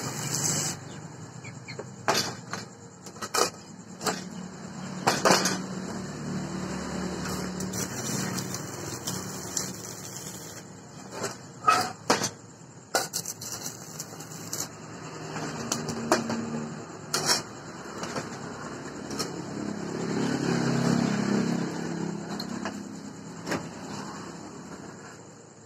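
A stick-welding arc crackling briefly at the start and then cut off, followed by scattered sharp knocks and clanks of steel parts being handled and set down on a metal workbench. A low rumble swells and fades about two-thirds of the way in.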